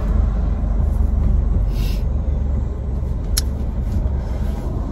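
Steady low vehicle rumble heard from inside a car cabin, with a short hiss about two seconds in and a single sharp click a little later.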